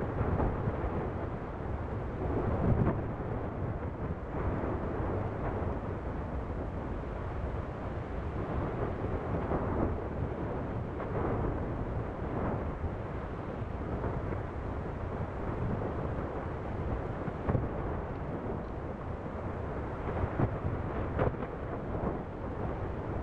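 Deep, steady rumble of an erupting fissure vent, with a few short louder bursts about three seconds in and toward the end.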